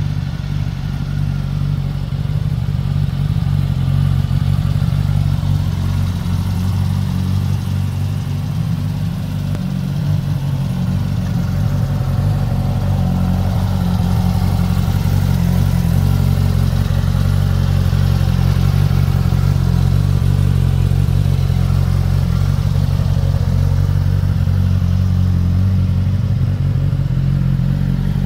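Suzuki GSX-S1000's inline-four engine idling steadily.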